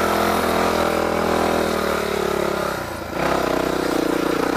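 Honda dirt bike's engine running under way, heard from on the bike. About three seconds in, the engine note drops and briefly quietens as the throttle is rolled off, then picks up again.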